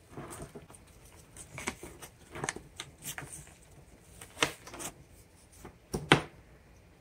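Urethane foam rubber casting being peeled and pulled out of its mold by gloved hands: soft, irregular rustling and peeling with scattered light snaps, the sharpest about six seconds in.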